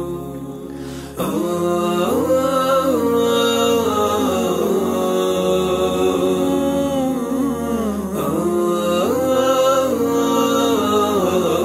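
Wordless male vocal music, with layered voices humming a slow, winding melody over a held drone and no instruments. It swells louder about a second in.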